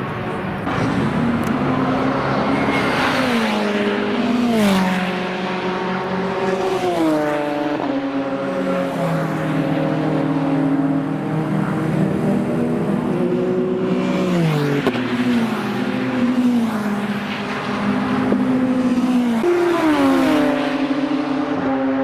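Race car engines accelerating hard through the gears. The pitch climbs and then drops sharply at each upshift, about half a dozen times.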